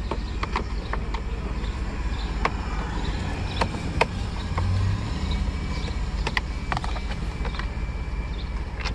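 Toyota Sienna engine idling, a steady low hum heard from inside the cabin, with a dozen or so sharp clicks and taps of the plastic steering-column cover being worked loose by hand.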